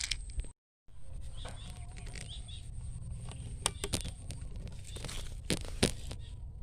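Outdoor ambience: a steady low rumble, like wind or handling on the microphone, with faint bird chirps and a few sharp clicks, and a brief dropout about half a second in.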